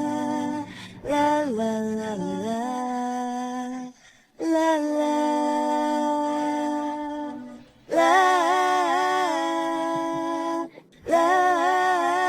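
Background music of wordless female vocals, hummed or sung as layered harmonies, with long held notes in phrases of about three seconds and short breaths between them.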